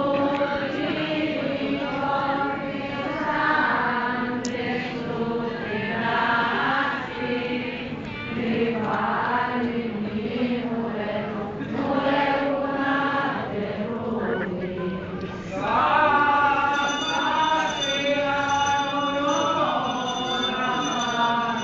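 A group of voices chanting a traditional religious litany in repeated phrases, growing louder near the end.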